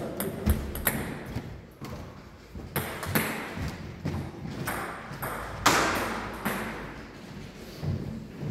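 Table tennis ball clicks and bounces at irregular intervals, echoing in a large hall, with one louder knock about five and a half seconds in.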